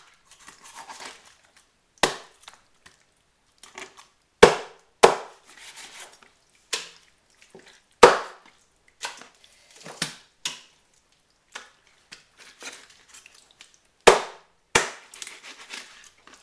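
A knife chopping a whole blanched chicken into pieces on a cutting board. There are about ten sharp, hard chops at uneven intervals, with softer knocks and handling noise between them.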